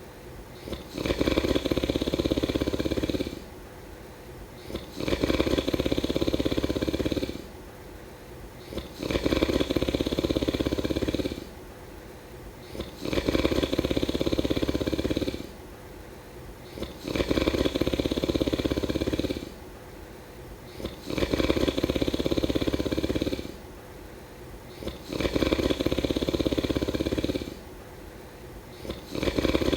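Snoring in a slow, even rhythm: a loud snore about every four seconds, each lasting around two seconds, with quieter breaths between.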